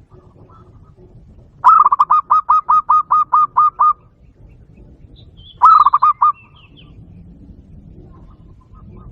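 Zebra dove call played back loudly through a Bluetooth speaker: a rapid run of about a dozen staccato coos lasting about two seconds, then a shorter run of about five coos.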